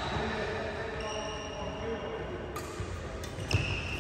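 A badminton racket hitting a shuttlecock once, about three and a half seconds in.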